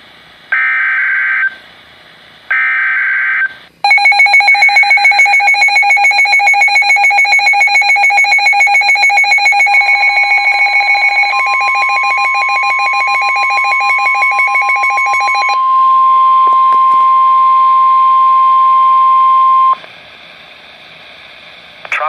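Emergency alert activation on NOAA Weather Radio: two buzzy digital SAME header data bursts about a second each, then the weather alert radio's own alarm beeping in a fast pulsing pattern. The steady 1050 Hz warning alarm tone joins under the beeping, carries on alone once it stops, and cuts off about two seconds before the end.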